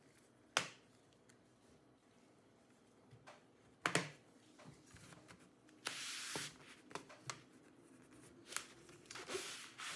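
Plastic perimeter clips of an Acer Nitro V 16 AI laptop's bottom cover snapping loose as a thin plastic pry tool works along the seam: sharp clicks, the clearest about half a second and about four seconds in, a short scrape around six seconds, and a cluster of clicks near the end.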